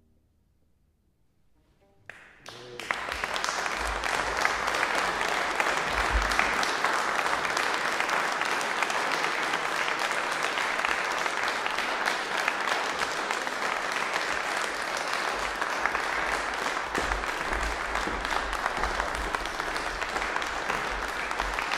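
Audience applause. It breaks out suddenly about two seconds in, after a short silence, and goes on steadily.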